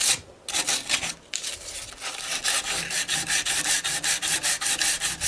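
Hand sanding with 150-grit sandpaper, quick back-and-forth scraping strokes at about five a second, rounding over an edge, with two short pauses early on.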